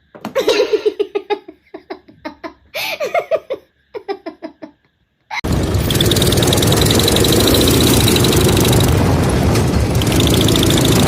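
High-pitched voice, like a small child laughing or squealing, in short bursts. About five seconds in, a loud engine cuts in abruptly and runs steadily.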